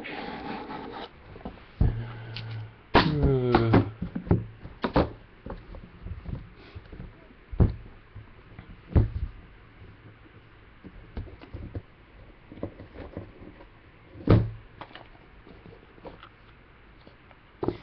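A box cutter slicing the seal on a Panini Flawless card briefcase, then a series of separate sharp clicks and knocks as the case is opened and the inner card box handled. A short whine bends up and down about three seconds in.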